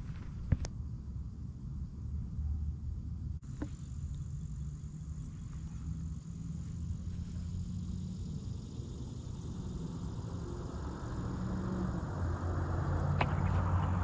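Outdoor ambience: a steady low rumble of traffic and wind, with a high, steady insect trill over it. A single sharp click comes about half a second in, and a rushing sound builds over the last few seconds.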